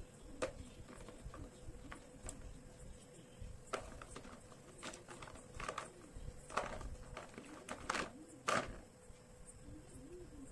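Small hard dried clay balls clacking against each other and the plastic tub as a hand sorts through them. The clicks are sharp and irregular, growing louder and closer together in the second half.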